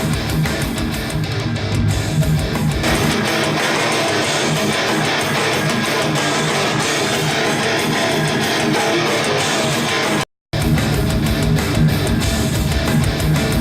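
Guitar music played back through S-90E (35AC-012) loudspeakers fitted with Alphard midrange and tweeter drivers, picked up by a microphone. The bass thins out about three seconds in, and about ten seconds in the sound drops out briefly and comes back with full bass.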